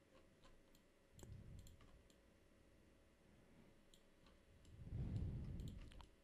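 Faint, scattered computer mouse clicks, about ten at irregular intervals. There is a soft low rumble about a second in and again, a little louder, near the end.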